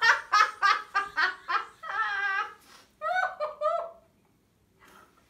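Two women laughing in rapid giggling bursts, which die away about four seconds in.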